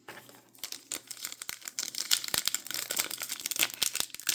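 Trading card pack wrapper crinkling and crackling as it is handled, with a dense run of small irregular crackles.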